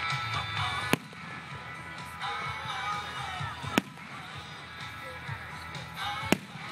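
Aerial firework shells bursting with three sharp bangs: one about a second in, one near four seconds and one past six seconds. Music plays underneath throughout.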